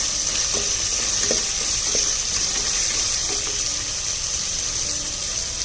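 Sliced onions sizzling steadily in hot sunflower oil in a pressure cooker, frying until softened and lightly browned.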